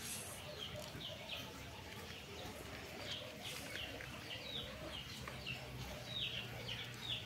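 Birds chirping: short, falling chirps, about two a second, over a low steady hum.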